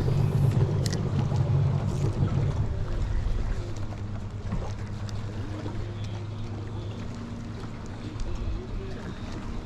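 Fishing boat's motor running: a steady low hum with wind and water noise, louder for the first two to three seconds, then settling lower.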